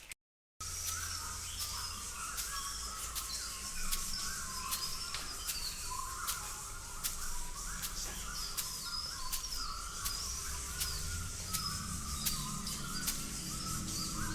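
Bird-like chirping: a long run of short, repeated warbling chirps with scattered faint clicks, starting after a brief dropout.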